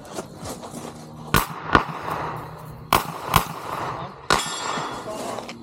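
Revolver shots on a competition stage: two quick pairs, each about half a second apart, then a single shot about four seconds in.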